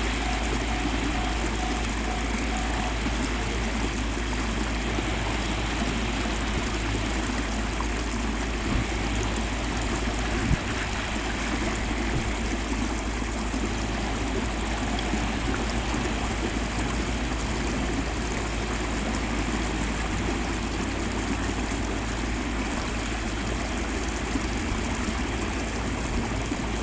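Ballast hopper work train at work: a steady rushing noise, typical of ballast pouring from the hoppers, over a low engine rumble, with one brief knock about ten seconds in.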